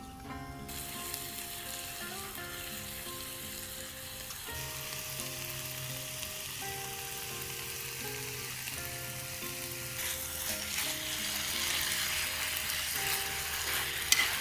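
Food sizzling in a hot frying pan, starting just under a second in and growing louder and fuller near the end, with a single sharp tap shortly before it stops. Background music plays alongside.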